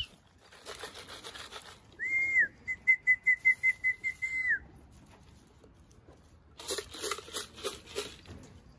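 A person whistling to call pigeons in: one short steady whistle, then a longer warbling whistle on the same pitch with about nine quick pulses, ending in a downward slide. Scratchy rustling follows near the end.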